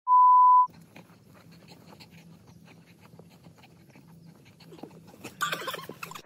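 A loud, steady electronic beep, a single pure tone lasting under a second, at the start. After it come faint clicks over a low hum, with a dog panting quietly.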